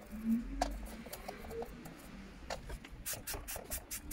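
Toothbrush bristles scrubbing the plastic frame and key switches of a computer keyboard wet with dish-soap solution, in a run of short scratchy strokes that come quicker in the last second and a half.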